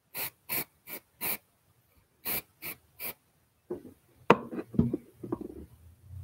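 Aerosol can of dry shampoo sprayed onto the ends of a braid in seven short hisses, four and then three after a brief pause. A few knocks and bumps follow near the end.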